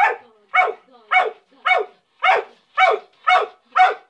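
A dog barking over and over in an even series, about two barks a second: excited greeting barks.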